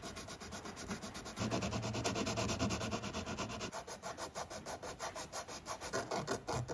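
Hand sanding with a piece of 150-grit sandpaper, rubbed back and forth in quick strokes, several a second, over a glued-on recurve bow limb tip overlay to shape it.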